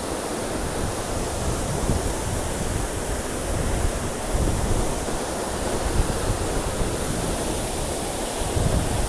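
Waterfall, a steady rush of falling water, with gusts of wind buffeting the microphone.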